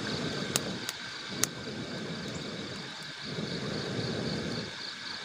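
Air blown through a blow pipe into a wood cooking fire: a steady rushing, breathy noise that drops out briefly about three seconds in and again near the end as the blower takes a breath. The burning sticks give a few sharp crackling pops in the first second and a half.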